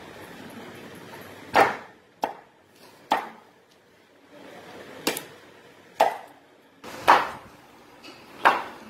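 A heavy curved chopping blade striking raw green mangoes on a wooden board, cutting them into pickle pieces. There are seven sharp chops at an uneven pace of about one a second.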